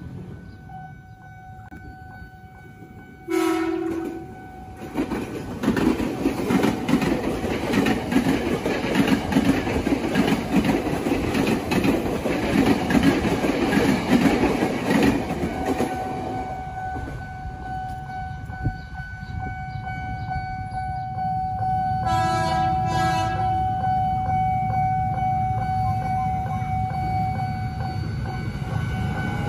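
Ex-Tokyo Metro 7000-series KRL electric commuter train sounding its horn about three seconds in, then passing the level crossing with loud rumbling and wheel clatter for about ten seconds. A steady level-crossing warning tone sounds under it and carries on after the train has gone. A second commuter train's horn sounds briefly near the end.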